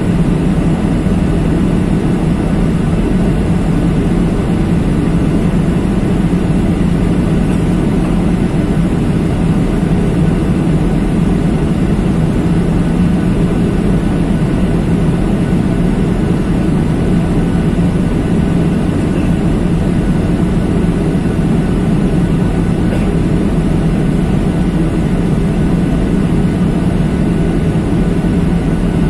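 Steady low drone of an airliner's jet engines and rushing air, heard inside the passenger cabin. It holds level and unchanging throughout.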